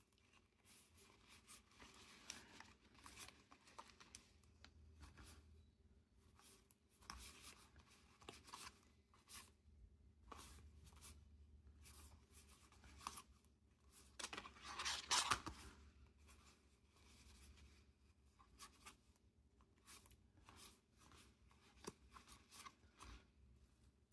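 Faint rustling and flicking of cardboard trading cards as a stack is thumbed through by hand, a soft tick or slide each time a card is moved. There is one louder rustle about fifteen seconds in.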